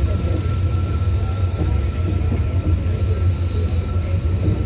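Passenger train running along the line, heard from inside a carriage at the window: a steady, heavy low rumble of wheels on rail and coach rattle, with a faint thin whine held steady above it.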